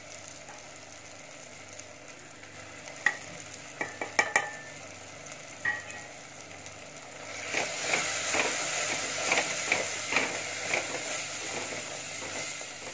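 Onion, tomato and spice masala frying in oil in a clay pot, with a steady sizzle and a few sharp taps about three to four seconds in. From about seven and a half seconds in, the sizzle grows louder as a wooden spatula stirs and scrapes the mix.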